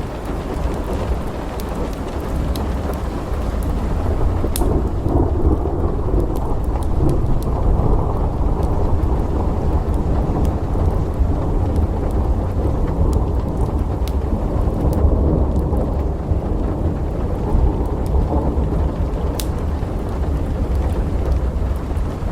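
Thunderstorm: long rolling thunder over steady rain. The deep rumble swells about four seconds in and stays heavy, with a few scattered sharp clicks on top.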